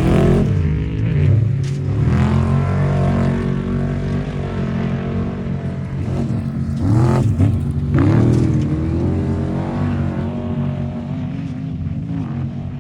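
Off-road race truck engine running loud and rough, revving up sharply at the start and twice more a little past the middle, its pitch rising and falling between revs.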